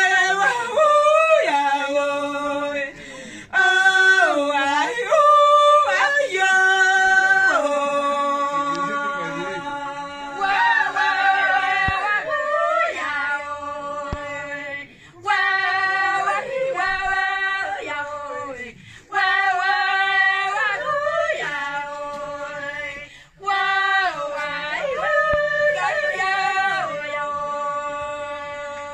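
Women singing a warawi, the traditional Andean song, unaccompanied. The voices hold long high notes that slide from one pitch to the next, in phrases a few seconds long with brief breaks for breath between them.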